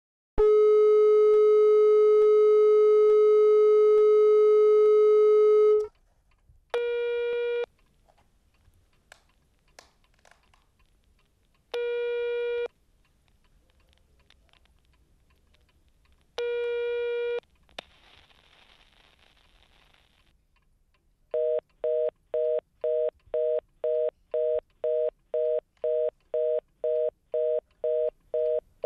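Telephone line tones: a steady dial tone for about five seconds, then three single ringing tones about five seconds apart and a brief burst of hiss. In the last third comes a fast busy signal, two-tone beeps about twice a second, the sign of a call that cannot get through.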